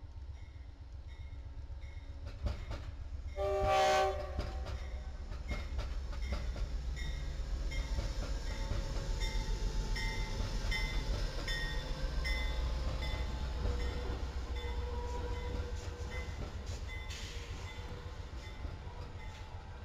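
Amtrak passenger train passing, led by a GE P42DC and a Siemens Charger locomotive: steady low rumble of the engines and wheels on the rails, easing off near the end. A short horn blast sounds about three and a half seconds in, and a bell dings steadily through the passage.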